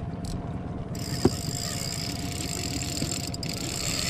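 Steady low rumble of the boat's outboard motor running. A single sharp knock comes a little over a second in, and a high hiss joins at about the same time.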